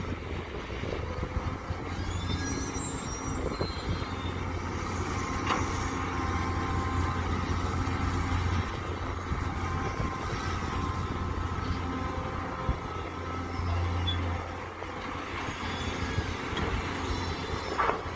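Mini excavator digging: its engine runs steadily with a low drone, and high metallic squeals and scrapes come and go over it.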